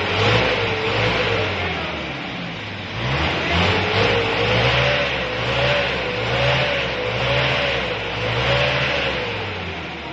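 1997 Hyundai Starex's diesel engine held at high revs for a smoke emission test, its note and a whine swelling and easing about once a second.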